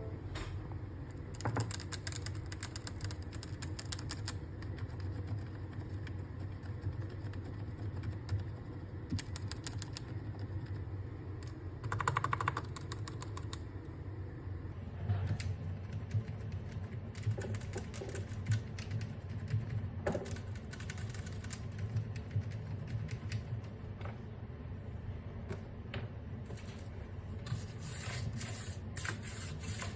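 Mechanical keyboard being typed on continuously, a steady run of soft keystroke clicks and thuds.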